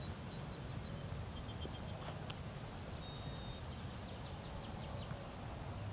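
Open-field ambience under a storm sky: a steady low rumble, with small birds chirping, including a fast trill of repeated high notes in the middle.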